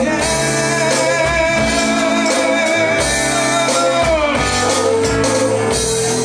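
A rock band playing, with drums, guitar and a singer. The singer holds a long note that slides down about four seconds in to a lower held note.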